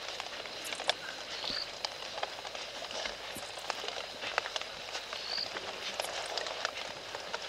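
Night ambience at a bush waterhole: a steady hiss with scattered, irregular crackles and ticks, and a short, high, rising chirp about every three to four seconds.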